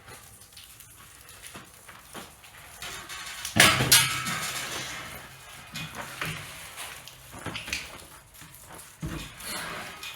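Workshop knocks and clatter of wood and metal being handled, the loudest a heavy knock about three and a half seconds in that rings on briefly.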